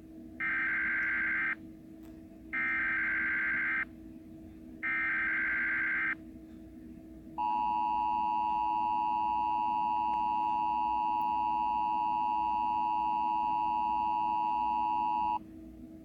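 Emergency Alert System tones: three bursts of SAME header data, each a little over a second long with about a second between them, then the two-tone attention signal (853 and 960 Hz sounding together), held steady for about eight seconds before it cuts off.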